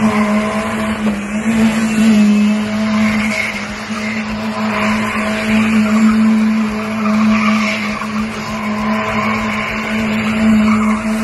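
Car sound effect: an engine held at a steady high note with tyres squealing, as in a burnout or drift.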